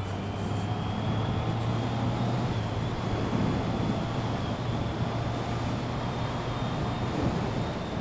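Motorcycle engine running steadily at cruising speed, with wind and road rush on the bike-mounted camera's microphone.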